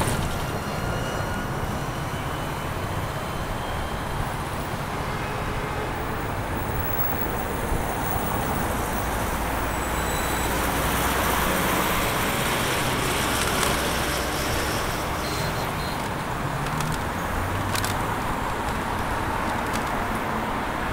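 Steady road traffic noise: cars and other motor vehicles passing on a busy city street, with a low rumble of engines and tyres.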